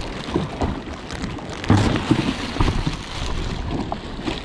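Clear plastic bag crinkling and rustling in handling, over wind buffeting the microphone and choppy waves lapping.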